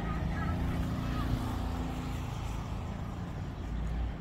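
A motor vehicle's engine running with a steady low hum that fades after about two seconds, over a continuous low rumble.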